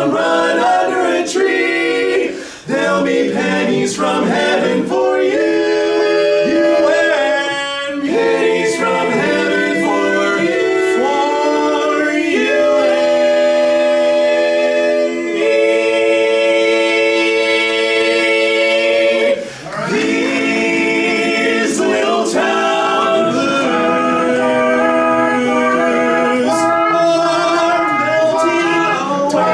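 Male barbershop quartet singing a cappella in four-part close harmony, moving through chords. Past the middle a chord is held for about four seconds, followed by a brief break for breath before the singing goes on.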